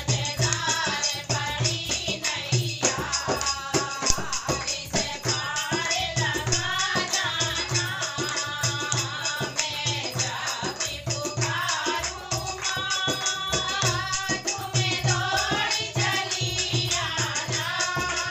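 Hindi devotional bhajan to the Mother Goddess: singing over a steady beat of hand drums and a shaker.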